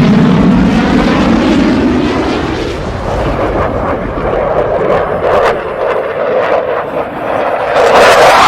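Aircraft flying over in a war-zone sound-effects track: a loud rushing drone fading over the first few seconds, a scatter of sharp cracks midway, and another plane swelling in loudly near the end.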